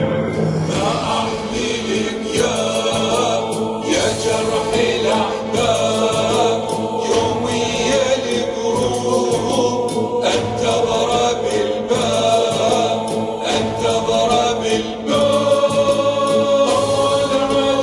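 Playback of a finished Husseini qasida (latmiya) recording: chanted vocals with choir backing over sustained pads and bass, with a steady beat.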